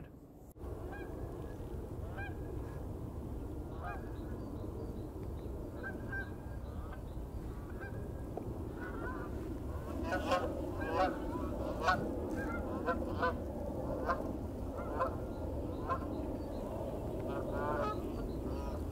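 Birds calling: a string of short, repeated pitched calls, sparse at first and more frequent from about ten seconds in, over a steady low background noise.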